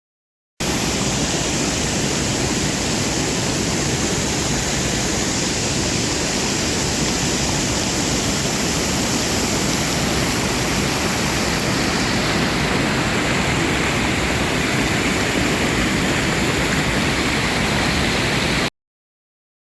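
Waterfall: a steady, continuous rush of falling water, with no rhythm or variation. It starts abruptly about half a second in and cuts off abruptly near the end.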